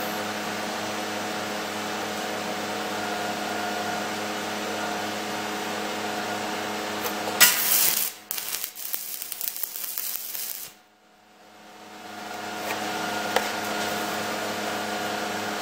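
Steady electrical hum from the ESAB 215ic stick welder setup. About halfway through, a stick-welding arc strikes with a sharp burst and then crackles and sputters unevenly for about three seconds: the arc is jumping around because of a poor ground connection. After it stops, the hum drops out briefly and swells back.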